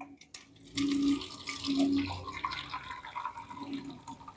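Hot spiced green-tea decoction (kahwa) pouring from a pot through a metal mesh strainer into a tray, splashing and trickling. It starts about a second in, is loudest just after, and eases to a thinner trickle toward the end.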